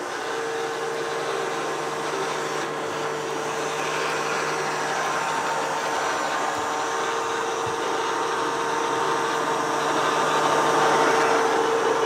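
Taurus Striker Mini robot vacuum cleaner running over carpet: a steady motor whine over a hum, growing gradually louder as the robot comes closer.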